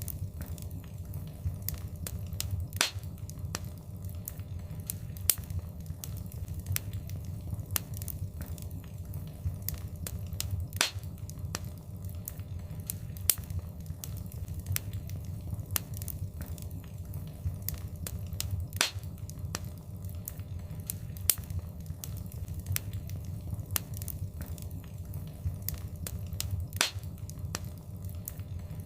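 Wood fire crackling in a fireplace: frequent sharp pops and snaps over a steady low rumble of flames, with a louder pop every eight seconds or so.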